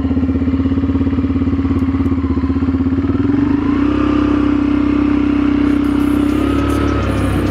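ATV engine running as it is ridden along a dirt track, with a steady pulsing note that picks up in pitch about halfway through as the engine speeds up, then holds steady.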